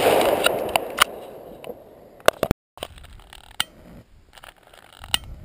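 Consumer fireworks artillery shell bursting: a noisy wash that fades over about two seconds, with sharp cracks scattered through it. The sound cuts out briefly about halfway, then a few fainter cracks follow.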